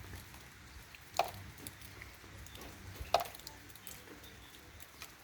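Water dripping after heavy rain: scattered single drops, with two louder plops about a second and three seconds in.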